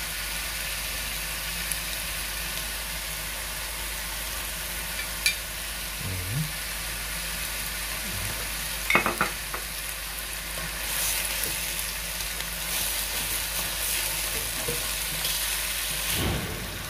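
Cabbage and meat frying in a wide pan: a steady sizzle that swells for a few seconds just past the middle as fat is spooned over it, with a few sharp clinks of a metal spoon against the pan and dishes and a couple of dull knocks.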